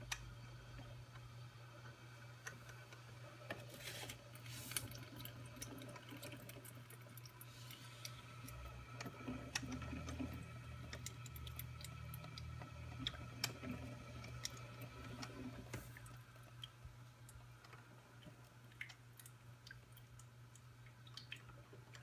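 Black & Decker SpaceMaker drip coffee maker heating up after being switched on: faint ticks, crackles and gurgles of water warming in the machine over a steady low hum, busiest in the middle.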